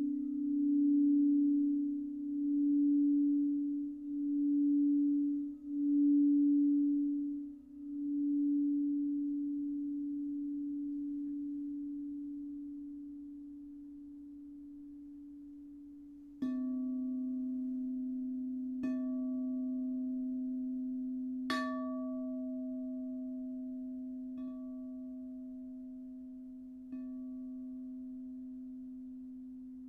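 Singing bowls ringing. A low tone wavers in slow pulses and fades away, then about halfway through a bowl is struck five times, each strike ringing on with higher overtones and slowly decaying.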